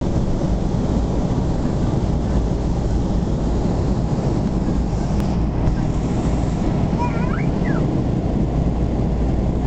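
Cabin noise of a Boeing 737-300 airliner in flight, heard from a window seat over the wing: a steady, loud low rumble of its CFM56-3 turbofan engines and the airflow over the fuselage.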